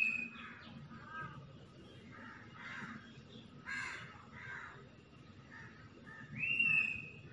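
Crows cawing repeatedly in short rough calls. Twice, once at the start and again about six and a half seconds in, there is a louder whistle that rises and then holds its pitch.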